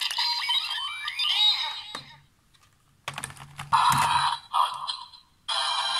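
DX Demons Driver toy belt playing its electronic sound effects as Vistamps are pressed onto it with plastic clicks: a burst of chimes with a rising sweep in the first two seconds, a few clicks and a second burst about three seconds in, then a steady electronic tune starting about five and a half seconds in.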